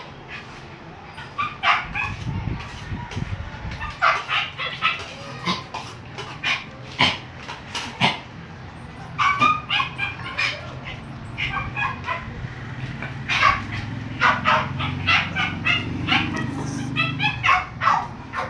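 Dogs barking and yipping: many short, high barks, often in quick runs of two or three, repeating all through.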